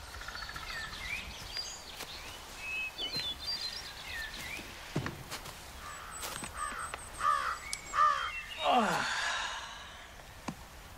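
Garden ambience with birds chirping and calling, several louder calls coming about two-thirds of the way in and a falling sound right after them.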